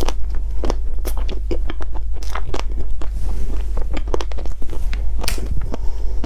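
Close-up biting and chewing of a chocolate-coated ice cream bar, its crisp shell cracking in irregular sharp crunches, over a steady low hum.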